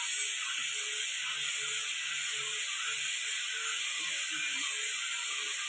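Electric angle grinder with a disc working a wooden board, giving a steady hiss.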